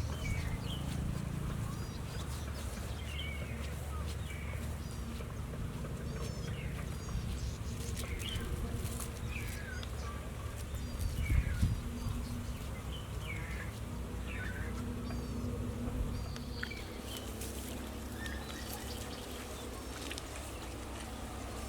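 Outdoor rural ambience. Short, falling bird chirps come every second or so over a low, steady buzzing hum, with a louder low rumble about eleven seconds in.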